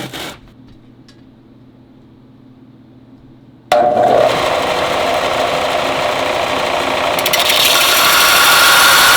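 Faint low hum, then a belt sander comes on suddenly a little over a third of the way in and runs steadily, grinding the edges of a rough steel throwing star cut from an old saw blade. The grinding turns harsher and brighter near the end.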